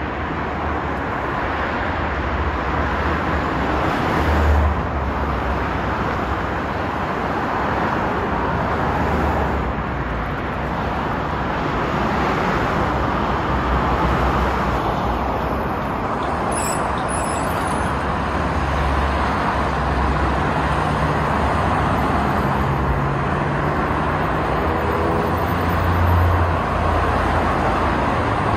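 Steady road traffic noise from cars running on a multi-lane city highway, with the engine of one vehicle standing out as it passes near the end.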